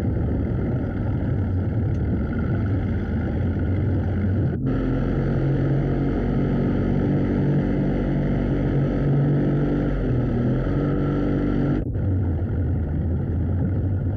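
Motorboat engine running steadily over wind and water noise. The sound breaks off for an instant twice, about four and a half and twelve seconds in, and the engine note changes after each break.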